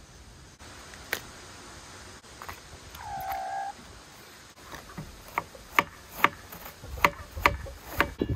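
A kitchen knife chops cabbage on a wooden cutting board, a string of sharp chops about two a second starting about five seconds in. Before that come a few light clicks as leaves are pulled off the cabbage, and a brief call about three seconds in.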